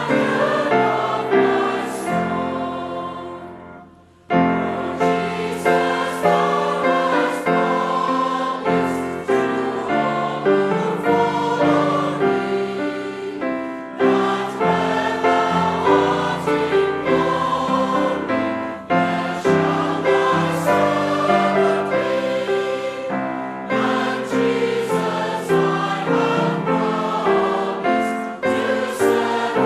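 Choir singing church music. About four seconds in the singing fades almost to silence, then a new passage starts straight away and runs on.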